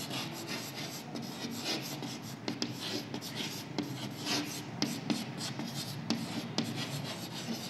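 Chalk writing on a chalkboard: a quick, irregular run of short scratches and taps as a word is written out stroke by stroke.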